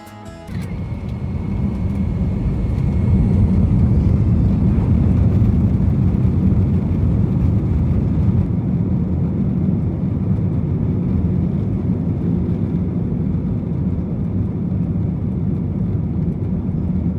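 Cabin sound of an Airbus A321's two CFM56 turbofans at takeoff power: a heavy, deep rumble of engines and runway that builds over the first few seconds and then holds steady as the jet rolls and lifts off near the end. A thin, steady high whine sits over it for the first couple of seconds.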